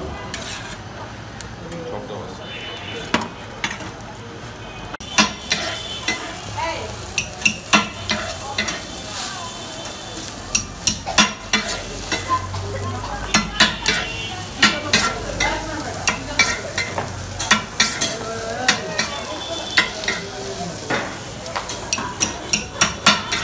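Metal spatulas clacking and scraping against a flat griddle as food is chopped and turned, over a steady frying sizzle. The clacks are few at first and come thick and fast from about five seconds in.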